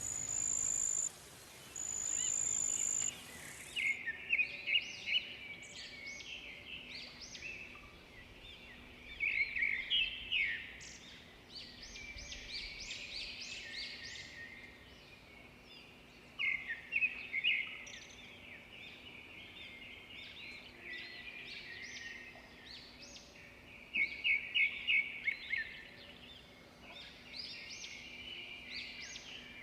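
Small birds chirping: a steady stream of high chirps, with loud bursts of rapid chirping about every six to eight seconds.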